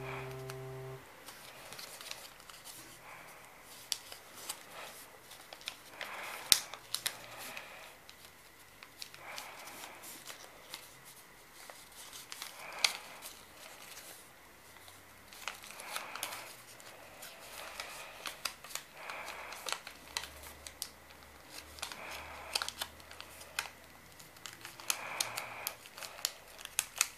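A sheet of paper being folded and creased by hand into a paper airplane: a soft rustle every few seconds as the paper slides and bends, with sharp crackles and taps as the creases are pressed down.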